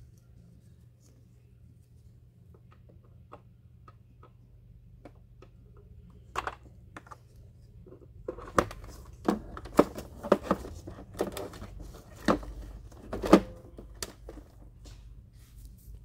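Hard plastic clicks and knocks from a robot vacuum's battery pack and its wire connector being handled with gloved hands: a few light ticks at first, then a run of sharper, louder clicks and knocks in the second half.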